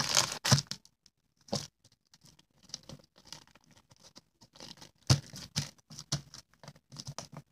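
Plastic slime bag being handled: crinkling and rustling in short scraping bursts, with a quiet spell about a second in and busier handling near the end.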